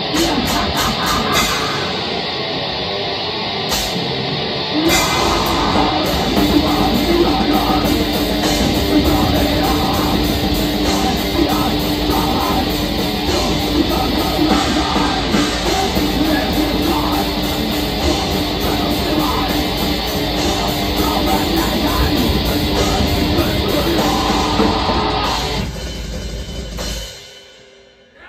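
Black metal band playing live: distorted guitars over fast drumming, with one long held note through the middle. The music dies away about 26 seconds in.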